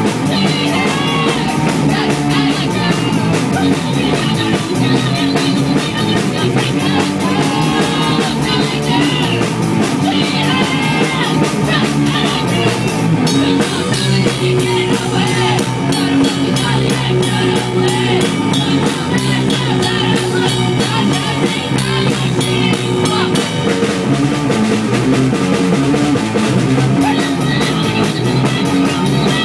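Rock band playing live in a rehearsal room: electric guitar and a drum kit with a steady fast beat, and sung, shouted vocals. The cymbal strikes grow denser and sharper for a stretch in the middle.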